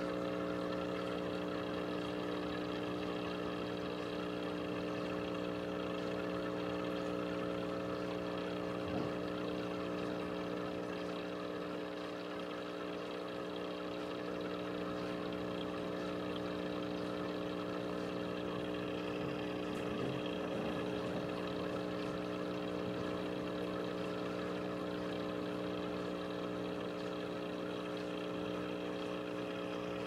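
Aquarium air pump humming steadily, with air bubbling through the tank's box filter. There is one soft tap about nine seconds in.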